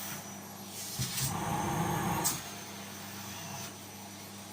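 Vacuum cleaner running, a steady motor hum with a thin high whine, sucking up balls. It gets louder for about a second in the middle, with a short clack at the start and end of that stretch.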